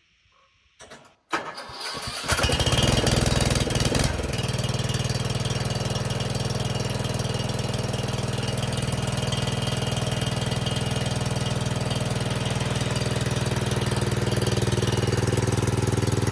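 Husqvarna Rider 13 ride-on mower's newly swapped-in engine starting on its first test run: a few clicks of cranking, then it catches about two seconds in, runs faster for a couple of seconds, and settles into steady running while the rider is driven. Its exhaust is not yet piped to the muffler.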